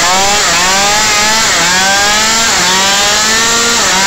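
Tuned big-bore two-stroke drag scooter engine revved hard in repeated surges, the pitch climbing and dropping back about four times, as the rear tyre spins in a burnout.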